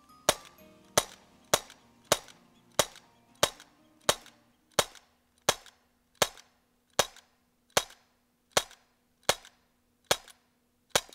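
Heckler & Koch VP9 blowback CO2 BB pistol (.177) fired shot after shot, about fifteen sharp cracks evenly spaced roughly two-thirds of a second apart, the pace easing slightly toward the end, as a full magazine of BBs is emptied.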